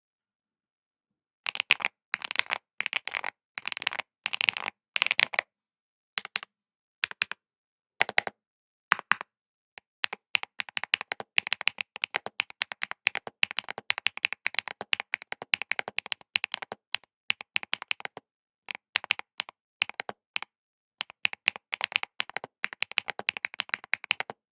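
Typing on a mechanical keyboard with Neo Amber linear switches in an FR4 plate: short bursts of keystrokes, then a few single presses, then long runs of fast typing with brief pauses.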